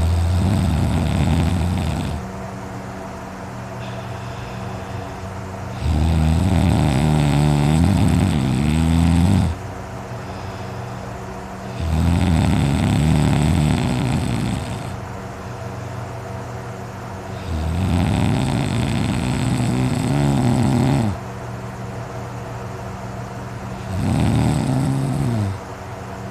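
A person snoring loudly in deep sleep: five long snores, one about every six seconds, each lasting two to three seconds.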